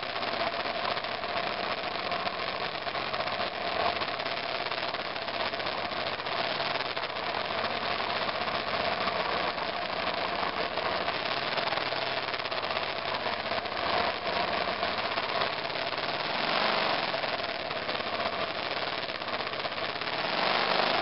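2002 BMW F 650 GS Dakar's single-cylinder engine running steadily as the motorcycle is ridden along a trail, a continuous drone with a few brief swells in loudness.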